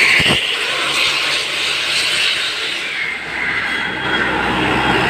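Road vehicle driving past: a steady rush of engine and road noise with no horn, and a short low thump about a quarter second in.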